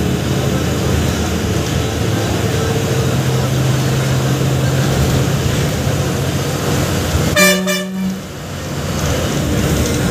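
Steady drone of a moving city bus in street traffic. About seven and a half seconds in, a vehicle horn gives one honk of just under a second.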